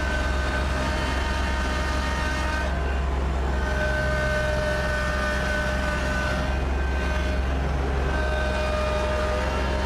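Kubota BX2680 compact tractor's diesel engine and front snowblower running under load, heard from inside the cab: a steady drone with a high whine that comes and goes.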